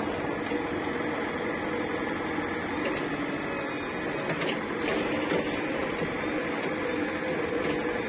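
Mahindra 475 DI tractor's diesel engine running steadily as it pulls a trolley loaded with earth, with a few light knocks about five seconds in.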